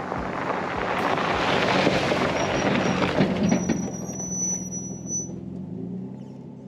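Outro music ending: a steady drum beat gives way to a loud, rising wash of noise over a held low chord, with a thin high tone near the middle, then the whole fades out.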